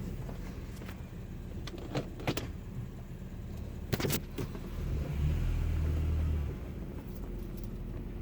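Sounds in and around a 2005 Honda Accord: a steady low rumble with a few sharp clicks about 2 and 4 seconds in, then a louder low hum lasting over a second from about 5 seconds in.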